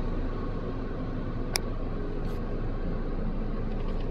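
Car wash air-dryer blowers running, a steady rushing noise heard from inside the car's cabin, with one sharp click about one and a half seconds in.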